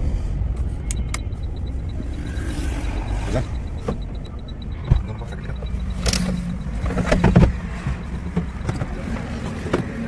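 Mahindra Scorpio's mHawk four-cylinder common-rail diesel running with a steady low rumble and a run of quick, light, evenly spaced ticks through the first half. This is the 'tak tak' knock under load that the mechanic traces to the No. 2 cylinder's injector, since it goes silent when that injector's connector is unplugged.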